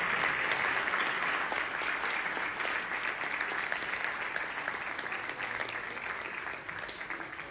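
Audience applauding, a dense patter of many hands clapping that fades gradually.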